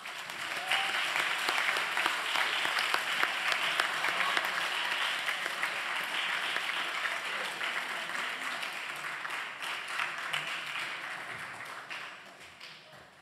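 An audience applauding: a round of clapping that starts at once, holds steady, and dies away over the last few seconds.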